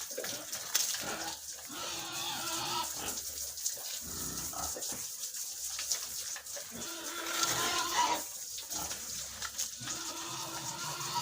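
Pigs grunting in their pen, with several drawn-out calls.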